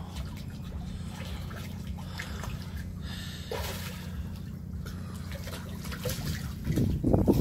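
Water trickling and lapping around a diver standing in harbor water at a dock, over a steady low hum. Louder stirrings come near the end.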